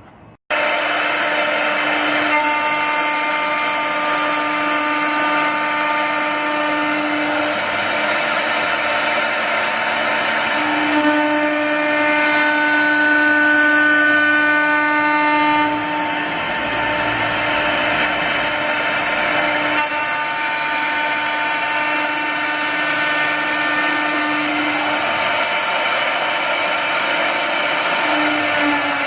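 CNC wood-turning lathe with a high-speed engraving spindle cutting wood: a steady high whine over a rasping cutting noise. The whine shifts pitch in steps, and one tone falls near the end.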